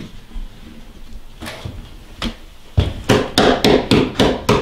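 A quick run of sharp knocks and thumps on timber inside a wooden railway carriage, about four a second, starting about three seconds in, after a couple of fainter single knocks.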